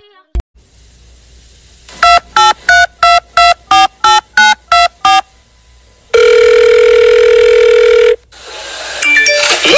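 Telephone dialing: about a dozen short keypad beeps in quick succession, each at a different pitch, then a single steady tone of about two seconds like a line ringing. A short noisy rising sound follows near the end.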